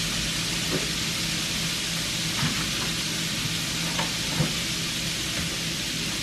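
Canned corn sizzling steadily in a hot pan, with a few faint pops and a low hum underneath.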